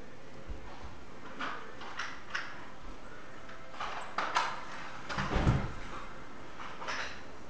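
Scattered knocks and bumps of handling and movement, several short ones spread out, the loudest a dull thump about five and a half seconds in.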